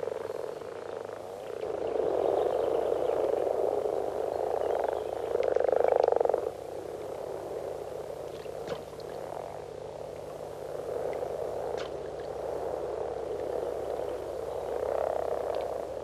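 Chorus of male common frogs giving their mating calls: a low, continuous growling purr of many overlapping voices, swelling loudest about six seconds in. The calls are only a growl because the males have internal vocal sacs rather than balloon-like external ones.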